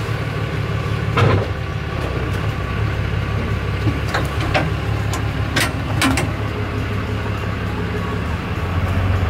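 Pickup truck engine running steadily as the truck pulls forward out from under a fifth wheel trailer, unhooking from the sliding fifth wheel hitch. Several short sharp knocks come through about a second in and again between four and six seconds in.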